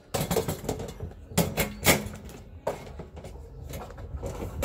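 Knocks and clatter as a metal clamp ring is fitted around the black lid of a blue plastic shipping drum to seal it. There are several separate knocks, with the sharpest in the first two seconds.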